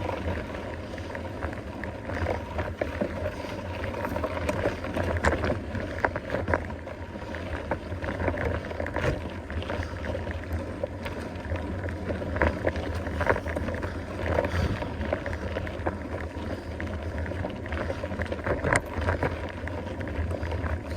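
Mountain bike climbing a dirt 4x4 track: tyres rolling over dirt and stones with frequent clicks and knocks from the bike, over a steady low rumble of wind on the microphone.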